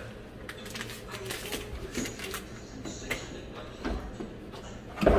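Light clicks and rattles of a dishwasher door and racks being handled, with a low thump about four seconds in as the door drops open.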